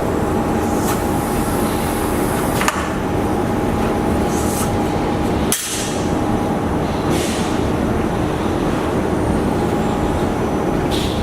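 Steady factory machinery noise with a constant hum, broken by a couple of sharp clicks and brief hissing swishes, from a silicone keypad silk-screen printing workshop.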